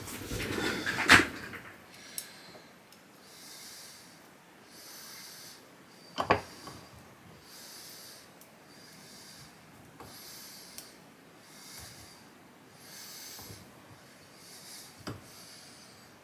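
A man breathing audibly through his nose as he strains, a short hiss every second and a half or so, with a few sharp clicks and taps from a wooden stick levering a small steel part held in a bench vise; the loudest click comes about six seconds in.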